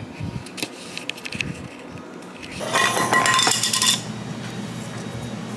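Clinking and clattering of tableware: a few small clicks, then a louder clattering burst with a bright ring, lasting about a second, around three seconds in.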